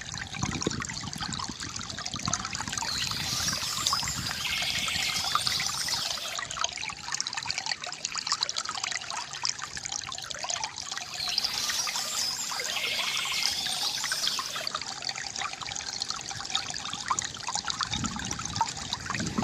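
River water trickling and gurgling steadily, with birds chirping in two spells, about three seconds in and again about eleven seconds in.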